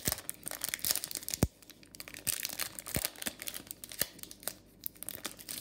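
Foil wrapper of a Topps baseball card silver pack being torn open by hand: irregular crinkling and tearing of the foil, with a few sharp snaps.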